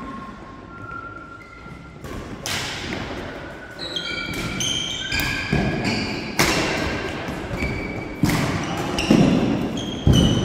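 Badminton doubles rally: rackets striking the shuttlecock about once a second from about two seconds in, with short shoe squeaks and footfalls on the wooden court floor between the hits.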